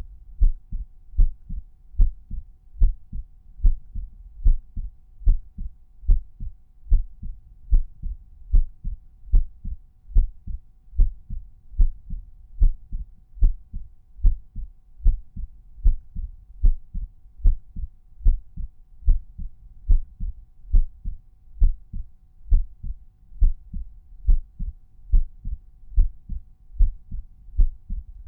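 Regular resting human heartbeat heard at the tricuspid auscultation point: paired lub-dub thuds at about one beat a second, low and even.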